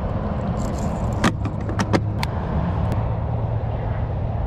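Clear plastic tackle tray being handled, giving a few sharp plastic clicks and rattles over a steady low hum.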